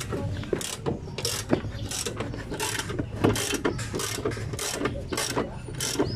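Ratchet wrench clicking in quick repeated strokes, about three a second, as it turns the screw of a coil spring compressor on a car's rear coil spring, backing off the compressor to free the spring from the shock absorber.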